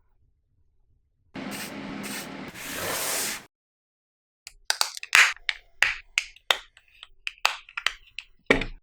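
A hissing rush lasting about two seconds, then a quick run of about a dozen sharp clicks and snaps, typical of plastic model-kit parts being handled and pressed together.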